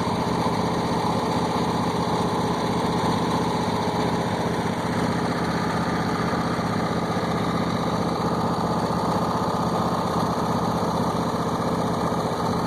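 Riding lawn mower engine running steadily at a constant speed.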